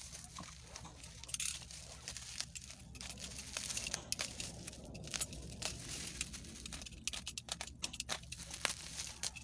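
Plastic bubble-wrap packaging crinkling and rustling as it is handled and cut open, with irregular small crackles and clicks.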